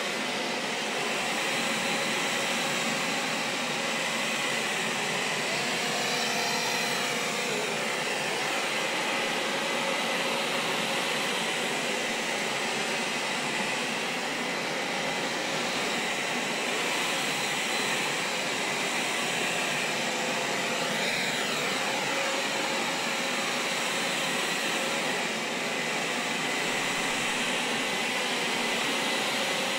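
A steady rush of machine noise, like a motor-driven blower or engine, holding an even level throughout, with a slow swirling shift in tone twice.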